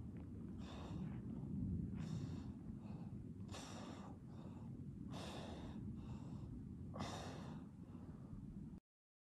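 A man breathing hard in rhythm with resistance-band biceps curls: a short, strong breath about every one and a half seconds, with softer ones in between, over a steady low rumble. The sound cuts off suddenly near the end.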